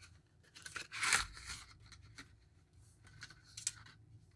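Packaging being handled as a black rubber watch strap is taken from a small clear plastic bag and set on the table: a rustle of about half a second roughly a second in, then scattered light clicks and taps.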